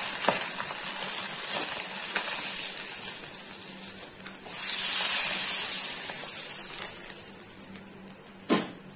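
Fish pieces sizzling in hot oil in a kadai on a high flame, with light spatula scrapes as they are lifted out. The sizzle swells about halfway through, then dies away once the pan is empty, and one sharp knock comes near the end.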